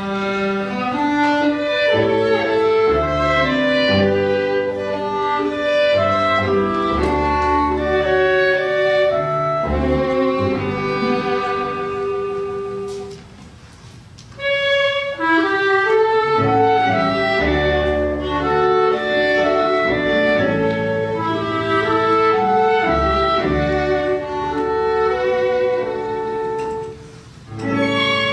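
Small folk-style ensemble of violin, clarinet, double bass and keyboard piano playing an instrumental passage, the violin carrying the tune, with two short breaks between phrases, about halfway through and near the end.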